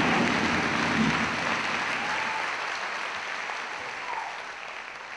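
Theatre audience applauding at the end of a musical number, the applause dying away steadily.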